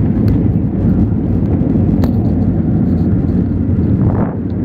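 Cabin noise inside a Boeing 737-800 rolling along the runway after touchdown: a loud, steady, low rumble of the engines and the wheels on the runway.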